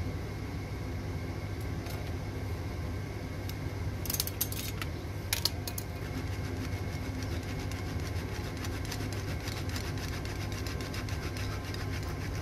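Steady low mechanical hum, with a few sharp clicks about four to five seconds in, then a fast run of faint ticks.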